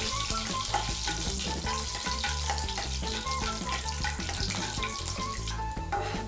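Whole spices sizzling in hot oil as they are stirred with a spatula: cumin seeds, cinnamon, cardamom and cloves, tempering the oil. Light background music with short plucked notes plays over the sizzle.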